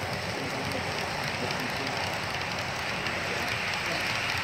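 Model freight train's cars rolling past on the layout track, a steady clatter of wheels on the rails.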